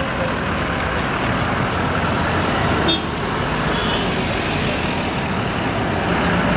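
Darjeeling Himalayan Railway steam locomotive hissing steam and running slowly, mixed with road traffic passing close by: a steady rumble and hiss throughout.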